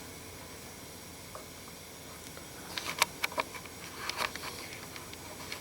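A quick run of small clicks and taps, handling noise from objects being picked up and set in place, starting about two and a half seconds in over a faint steady hiss.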